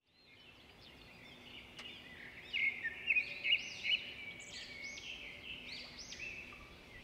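Birdsong: several birds chirping and trilling in quick, short calls over a faint background hiss, fading in and loudest a few seconds in.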